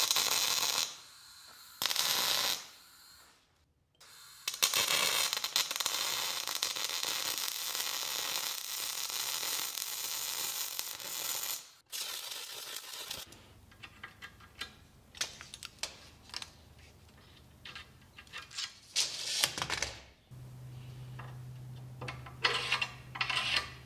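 MIG wire-feed welder arc crackling as short tack welds and then a longer steady bead of several seconds are run on steel plate. In the last part, light clinks and clanks of steel plate and a metal square being handled on a workbench, with a low steady hum starting about twenty seconds in.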